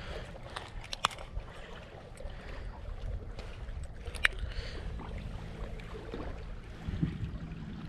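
Low, steady rumble of wind and small waves against a fishing boat, with two sharp clicks about a second in and about four seconds in.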